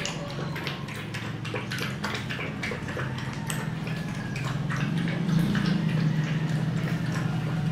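A Miniature Pinscher and a Mini Pinscher x Shih Tzu puppy lapping milk from a plastic double bowl: a quick, uneven run of wet tongue clicks, over a steady low hum.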